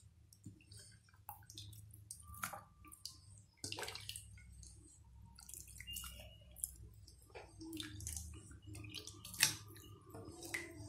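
Soaked wheat rava being scooped by hand into a steel mixer jar of tomato paste: soft, wet squishes and scattered faint clicks.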